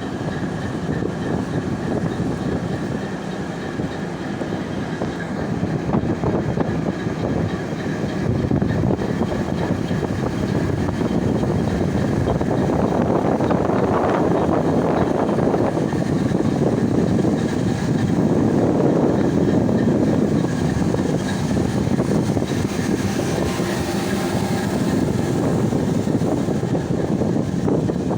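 Harbour tug's diesel engines running steadily under way on sea trial: a dense, even noise with a faint steady whine above it, growing louder about six seconds in.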